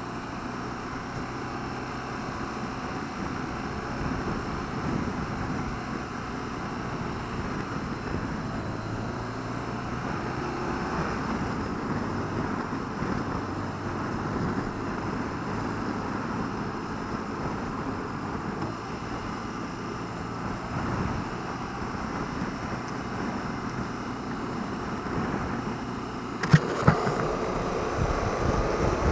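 BMW R1200RT's boxer-twin engine running at a steady cruise, mixed with wind and road noise. About two and a half seconds before the end there are two sharp knocks, and the wind noise grows louder.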